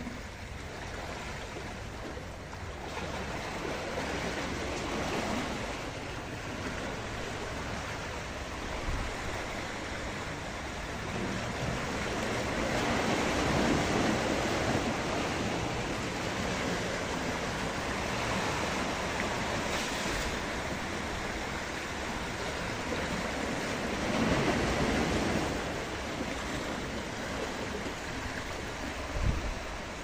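Sea surf washing and splashing against shoreline rocks, swelling louder twice, with wind noise on the microphone and a short thump near the end.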